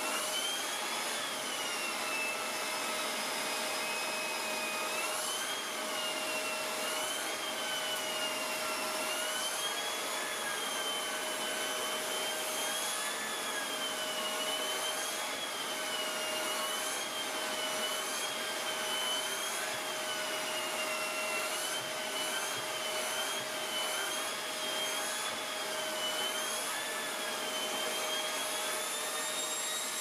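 Shark Rotator Professional Lift-Away vacuum running with its pet power brush working a carpet: a steady rush of suction with a high whine that wavers up and down in pitch.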